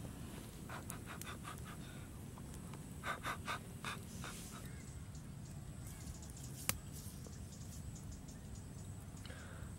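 Several short breathy puffs of a person blowing on a duck egg. About two-thirds of the way through comes a single sharp tap, the egg knocked on a flat stone to crack it. A steady low background noise runs underneath.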